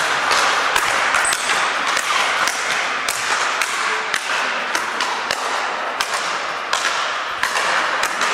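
Speed-ball rackets hitting tethered balls, a rapid irregular run of sharp hits from several players at once, over the steady background noise of a large sports hall.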